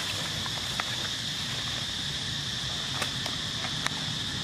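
Steady high-pitched drone of an insect chorus, with a few sharp crackles of dry leaves being disturbed.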